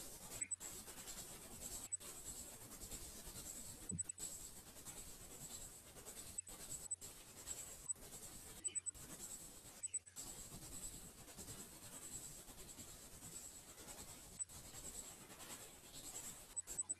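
Faint, steady scratchy hiss from an open microphone on a recorded online meeting, cutting out abruptly for a moment several times.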